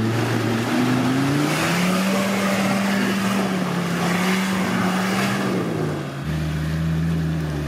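Off-road 4x4 engine revving up and held at high revs, then easing back about six seconds in, with a rough rushing noise while the revs are high.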